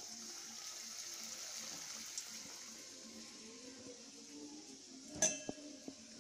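Dough-covered chicken balls sizzling in hot oil in a steel kadai, a steady hiss that fades over the first few seconds. About five seconds in comes one sharp metallic clink of a steel dish.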